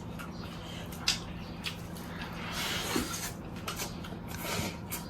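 Faint eating and handling noises as people eat grilled lamb leg: scattered light clicks and soft rustles, with a sharper click about a second in, over a steady low hum.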